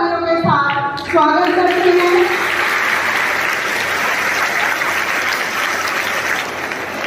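A large audience of schoolchildren clapping, the applause starting about a second in and holding steady for several seconds.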